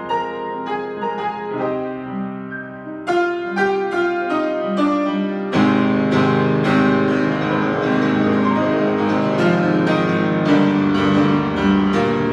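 A 93-year-old grand piano being played, freshly tuned with two broken strings replaced: a lighter run of notes that turns louder and fuller, with bass notes coming in, about halfway through.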